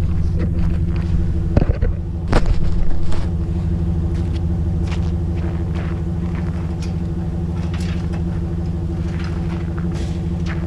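Chevrolet Silverado pickup idling steadily, with scattered knocks and clatter of gear being handled at its rear hitch rack. A louder burst of knocking comes about two seconds in.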